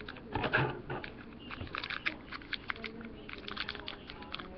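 Thin plastic blind-bag packet crinkling and rustling as hands pull it open, in a rapid run of sharp crackles, with a louder handling bump about half a second in.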